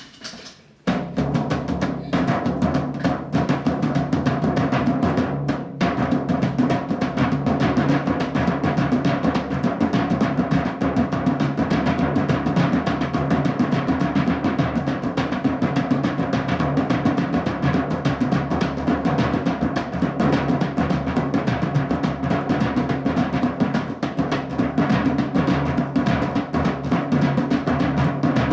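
Drumming music: fast, continuous drum strokes over a steady deep drum tone, starting about a second in.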